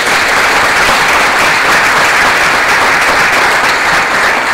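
Audience applauding steadily, welcoming a lecturer after his introduction.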